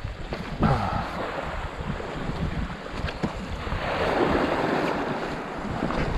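Sea water washing and splashing, with wind buffeting the microphone; a louder wash of water builds about four seconds in.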